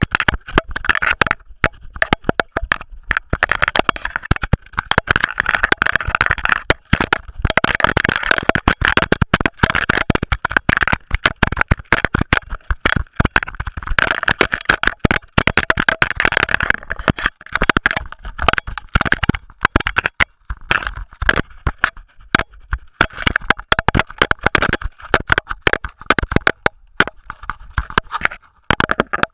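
GoPro action camera being jolted hard along a rough forest trail: a dense, irregular clatter of knocks and rattles over a steady rushing noise.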